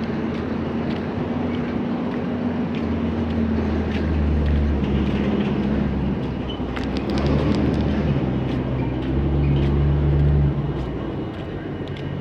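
A heavy vehicle's engine runs with a low rumble, its note shifting in pitch. It swells louder twice and eases off about ten seconds in. A few faint rattling ticks sound in the middle.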